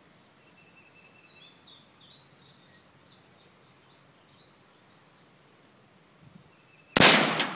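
A single AR-15 rifle shot near the end, sudden and loud, trailing off over about half a second. Before it, a songbird sings a run of short chirps, each rising and falling.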